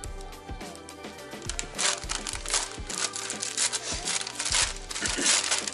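Brown paper bag crinkling and rustling in bursts as it is handled and opened, starting about a second and a half in, over background music with a steady beat.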